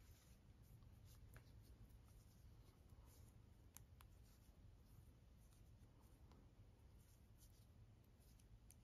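Near silence with a few faint, scattered clicks of metal knitting needles as stitches are worked slowly.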